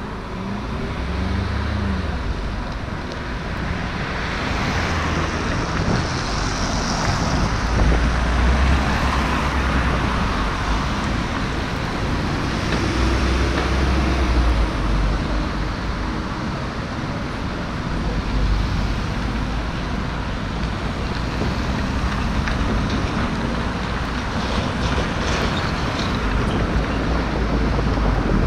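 City street traffic: cars and a light truck driving past close by. Their engine and tyre noise swells and fades over a steady low rumble.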